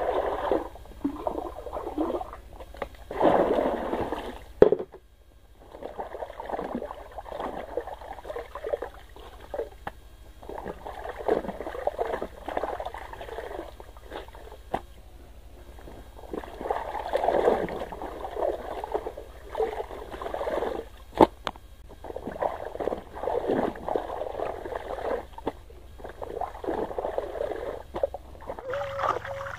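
Clothes being washed by hand in a plastic basin. Water is poured from a bucket at the start, then wet cloth is scrubbed, rubbed and squeezed in uneven strokes with splashing. A couple of sharp knocks stand out.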